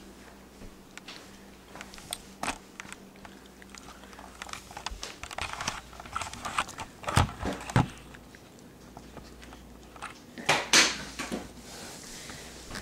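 Cat attacking a catnip-stuffed plush bear on a tile floor: scattered rustles, scratches and knocks, the loudest a pair a little past halfway and another cluster near the end.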